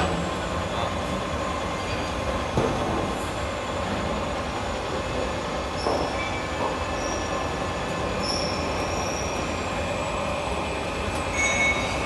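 Lock forming machine for HVAC duct running, its forming rolls turning as a sheet-metal strip is fed through them. A steady mechanical running noise with a thin high whine that wavers slightly in pitch, and a few brief metallic knocks.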